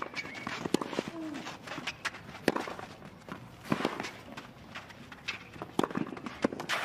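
Tennis rally on a clay court: rackets strike the ball back and forth, a sharp pock every second or so, with players' footsteps on the clay.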